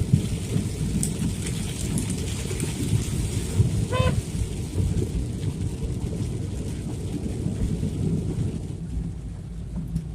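Heavy rain pouring down in a steady, dense rush, with a short beep about four seconds in.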